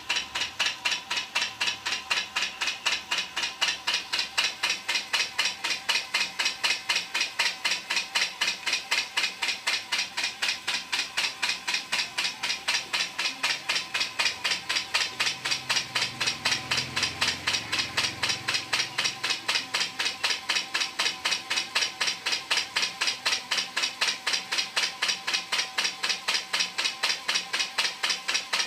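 Homemade coil-winding machine for electric fan motors running, with an even clicking about three times a second over a steady motor whine. A low rumble joins in briefly about halfway through.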